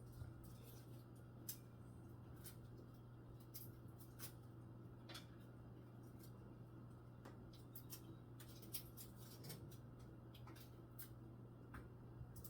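Near silence with faint, irregular light clicks and taps from kitchen food preparation, over a low steady hum.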